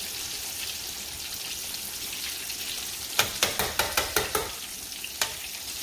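Breaded whole catfish frying in hot oil: a steady high sizzle, with a quick run of sharp clicks and pops about three seconds in and one more near the end.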